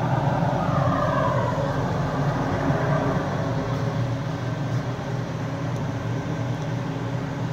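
A steady low machine hum, with a whine that falls in pitch over the first few seconds.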